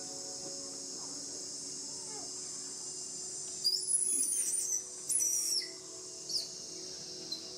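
Young macaque crying out in high-pitched squealing screams for about two seconds, then giving two short squeaks, as its muscles are massaged. A steady high drone of insects runs underneath.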